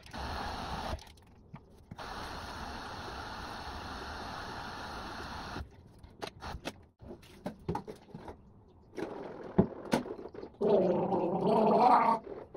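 Tap water running and splashing at a basin as face wash is rinsed off, stopping about six seconds in. Then a few small knocks and clicks, and a short burst of a person's voice near the end.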